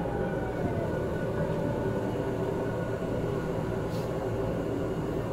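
Manila MRT train running on its track, heard from inside the car: a steady rumble of wheels and running gear with a humming whine that falls in pitch during the first second, as the train slows on its way into a station. A brief click comes about four seconds in.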